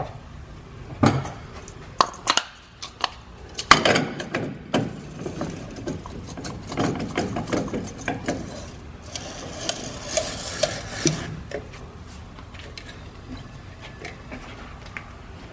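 Metal parts and tools clinking and knocking as a wheel is handled at a tire balancing machine: a run of separate sharp knocks over the first few seconds, then denser rattling and clatter, settling down near the end.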